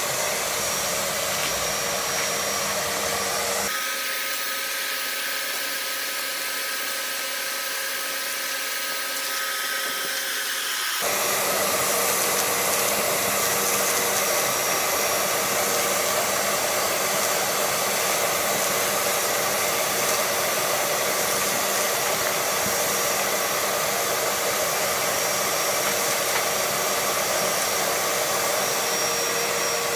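Shop vacuum running, pulling air and sawdust through its hose and a homemade cyclone separator bucket, a steady rushing hum. About four seconds in the rush thins and a steady whine comes through. Some seven seconds later the full rush returns.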